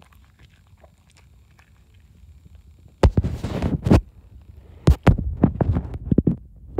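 Muffled thumps and rustling from the microphone brushing and bumping against a small dog's fur as the dog moves right up against it, loud and irregular from about three seconds in.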